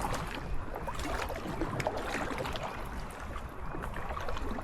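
Kayak paddling through calm water: irregular paddle dips, splashes and drips, over a steady low rumble.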